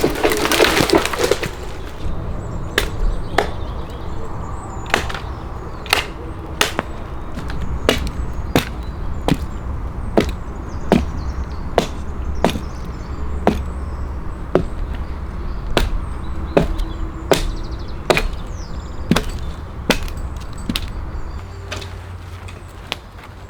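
An axe chopping into a log: sharp single strikes, irregular but roughly one to two a second. The strikes are preceded by a brief loud crashing noise right at the start.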